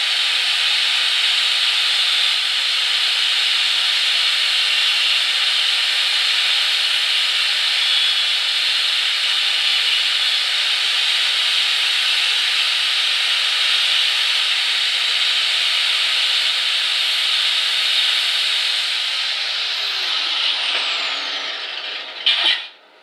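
Angle grinder with a thin cutting wheel running steadily while the side of the disc grinds the cut end coil of an air rifle mainspring flat, throwing sparks. About nineteen seconds in it is switched off and its whine falls as the disc spins down, followed by a short loud knock near the end.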